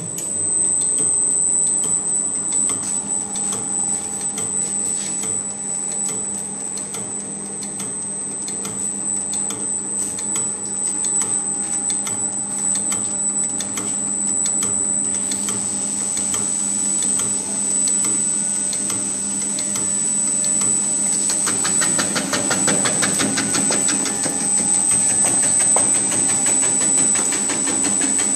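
Krupuk cracker-cutting machine running: a steady motor hum with a high whine and rapid, even clicking from the cutter, which grows denser and louder about three-quarters of the way through.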